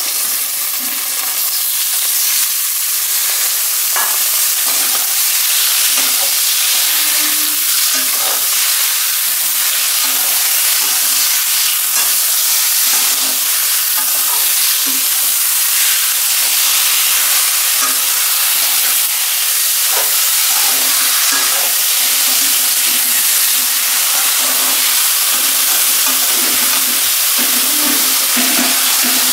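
Raw chicken pieces sizzling in hot oil with onions in a wok, a steady hiss that grows louder over the first couple of seconds as the chicken goes in. A steel spatula stirs and now and then scrapes and taps against the pan.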